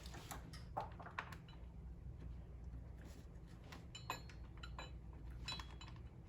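Small metallic clicks and clinks of a bolt and hand tools being handled as the last bolt is started by hand, a few sharp taps with a short ring around four and five and a half seconds in, over a steady low hum.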